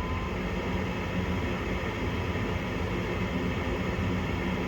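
Gas furnace's draft inducer motor running with a steady whir and low hum, just spun up at the start of the furnace's ignition sequence. This is the first step of a heating cycle on a furnace that is short-cycling.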